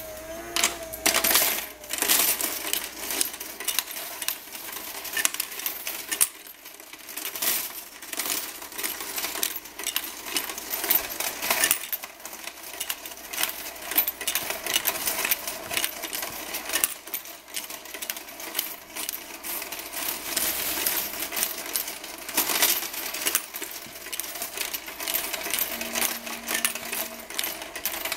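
Electric coin sorter running, with loose unsorted coins clinking through it and dropping into its stacking tubes in a dense, continuous stream.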